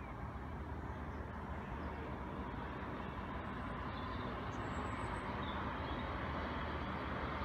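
Distant, steady rumble of a DB class 425 electric multiple unit running along the tracks far below, growing slowly louder, with a faint whine in the second half.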